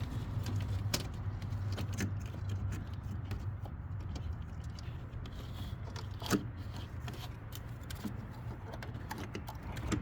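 Light clicks and rattles of a spark plug wire and its plastic clips being handled and fitted among engine parts, with one sharper click about six seconds in, over a steady low hum of background noise from outside.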